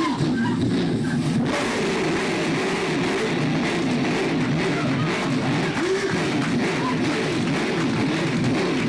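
Guitar-like rock music with sliding notes that rise and fall, denser and brighter from about a second and a half in.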